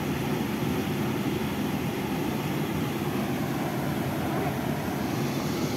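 Steady rushing of river water flowing over rocks and small cascades.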